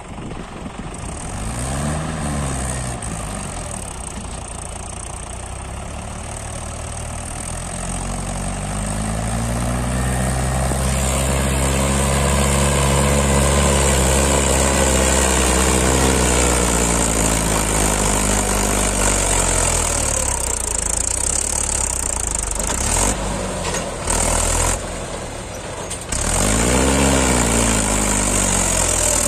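Mahindra 475 DI tractor's diesel engine pulling a fully loaded trolley through soft sand. Its pitch climbs slowly to a peak about halfway through, then sinks, with a short rise and fall in engine speed near the start and again near the end. There are a few abrupt breaks in the sound a little before the end.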